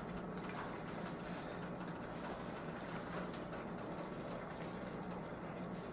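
Chopped onion sautéing in oil in a pan, a faint steady sizzle, with a low steady hum under it.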